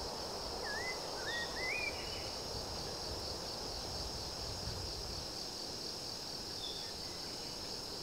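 Forest ambience: a steady chorus of insects with a fast pulsing high trill, and a bird giving three short rising whistles about a second in.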